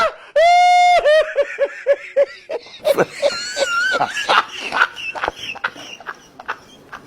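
A high-pitched shriek, then quick laughter of about six bursts a second that trails off. A warbling squeal and scattered clicks follow.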